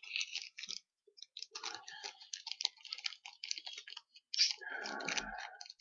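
Packaging of a boxed miniatures set being handled by hand: irregular light clicks and crackles, with a denser rustle about four and a half seconds in.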